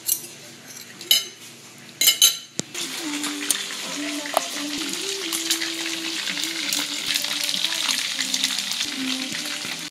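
Marinated chicken pieces deep-frying in hot oil, a steady dense crackling sizzle that starts about three seconds in. Before it come a few loud knocks.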